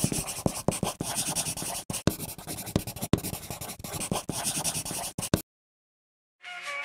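Pencil scratching across paper in many quick strokes as it shades lettering. The scratching stops suddenly about five seconds in, and after a second of silence music starts near the end.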